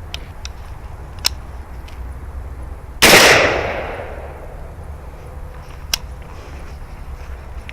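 A single .223 rifle shot about three seconds in, sharp and loud, its echo trailing off over about a second. Faint clicks come before and after it.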